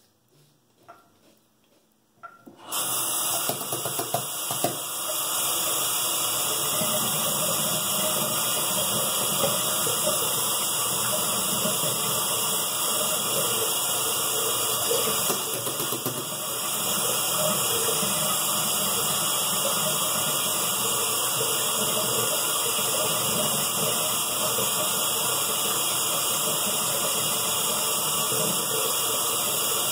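A bathroom tap turned on about two and a half seconds in, then running steadily into the sink.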